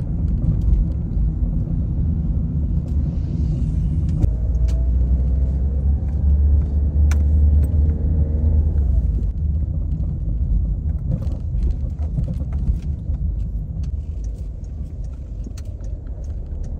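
Car driving, heard from inside the cabin: a steady low rumble of engine and tyres on the road. The engine note rises about four seconds in and falls away near nine seconds, with a few light clicks and rattles, and the sound grows quieter toward the end as the car slows.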